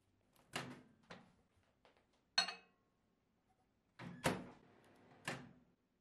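Objects being handled and set down: a series of separate knocks, with a sharp, briefly ringing clink about two and a half seconds in and the loudest knocks around four and five seconds in.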